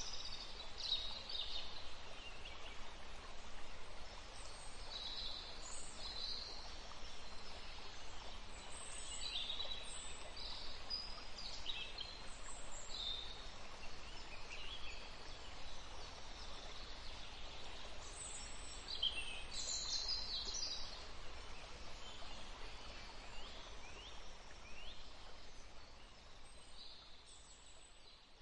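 Birds chirping and calling in short bursts over a steady background hiss, fading out over the last few seconds.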